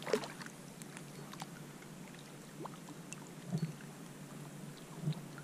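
A crab hooked on a fishing line splashing at the water's surface just after the start, then small water sounds and faint clicks around a kayak, with two soft low knocks later on.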